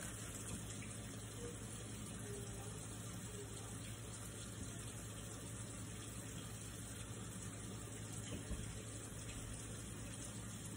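Kitchen sink tap left running: a steady hiss of flowing water.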